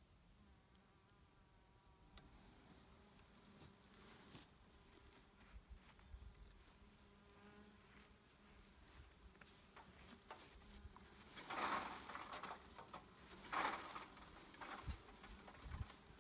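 Honey bees buzzing faintly around the hive while the swarm is being transferred, over a steady high insect drone. Two brief, louder rustling noises come in the second half.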